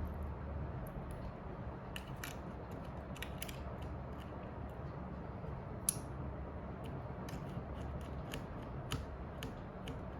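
Small, irregular clicks and taps of tools and parts being handled while working on a phone, with one sharper click about six seconds in, over a low steady hum.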